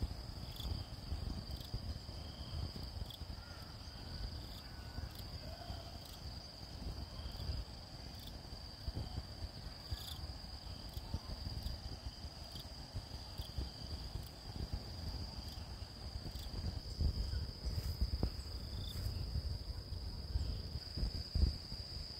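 Insects trilling in one high, unbroken tone, with a second, fainter insect call breaking in and out, over a low, uneven rumble.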